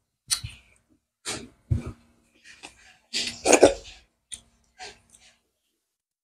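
Close-miked mukbang eating sounds: chewing and wet lip smacks over a mouthful of rice, in a string of short separate bursts with quiet gaps between, the loudest about three and a half seconds in.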